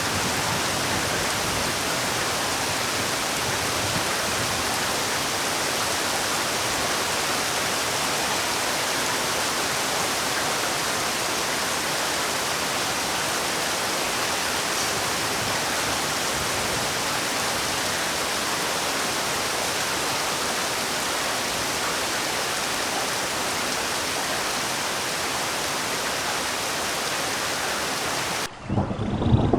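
Steady rainfall, an even hiss with no change for most of the time. About a second before the end it cuts suddenly to a duller sound with low rumbling wind on the microphone.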